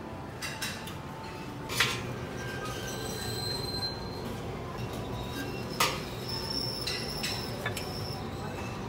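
Metal serving tongs clinking against plates and the buffet counter: two sharp clinks about two and six seconds in, with a few lighter taps, over a steady hum of the dining room.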